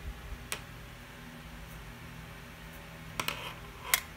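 A few light clicks and taps over a faint steady hum, the loudest just before the end, from a pen knocking against the desk and pen case as a hand picks it up.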